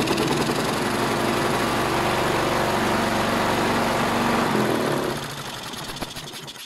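Briggs & Stratton Quantum single-cylinder four-stroke lawn mower engine running steadily on carburettor cleaner sprayed into the intake vent, then slowing and dying away after about five seconds. That it runs on the cleaner points to a fuel delivery fault in the primer base assembly.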